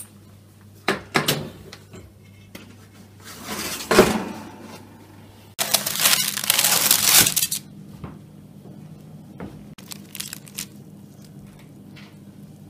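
Kitchen handling noises while a baked sponge cake is taken out of the oven: a few clicks and a short noisy swell, then the loudest part, about two seconds of scraping as a knife is run around the inside of the metal cake ring to free the cake.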